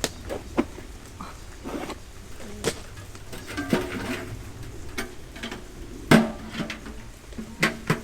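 Irregular clicks and knocks, the loudest about six seconds in, over a faint low rumble.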